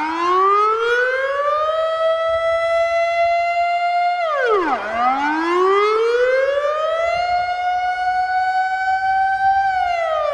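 Emergency alert siren wailing in a slow cycle: the tone rises over about two seconds, holds steady, then drops quickly before rising again. It goes through this cycle twice, with the second drop starting near the end.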